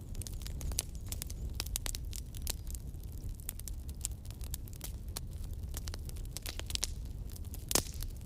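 Campfire burning: a steady low rumble of flames with frequent sharp crackles and pops from the burning wood, one pop louder than the rest near the end.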